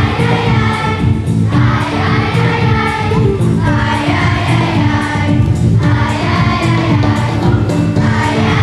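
Children's choir singing a Christmas song in unison with musical accompaniment.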